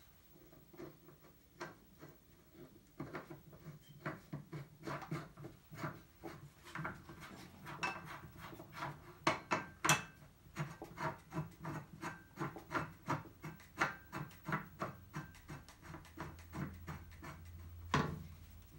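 Vintage parking brake lever assembly worked by hand: a long run of irregular metal clicks and knocks, several a second, with a louder knock about ten seconds in and another near the end.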